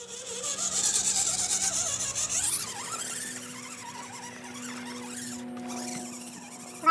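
Electric motor and drivetrain gears of an RC scale crawler whining and squealing as it crawls over roots, the pitch shifting as the throttle changes, with a sharp click near the end.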